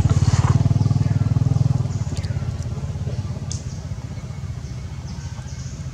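An engine running with a rapid, even throb, loudest for the first two seconds and then fading away. A short falling chirp sounds over it about two seconds in.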